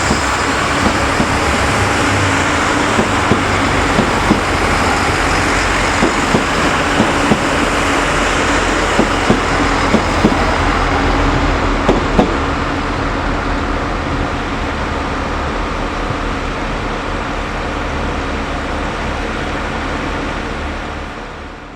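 Irish Rail 29000 class diesel multiple unit pulling away, its diesel engines running with a steady drone. A string of sharp clicks from the wheels passing over rail joints and points runs through the first half, and the sound slowly grows fainter after that.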